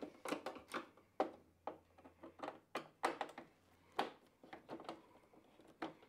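Screwdriver undoing screws in a tumble dryer's plastic fascia panel: a run of irregular small clicks and taps.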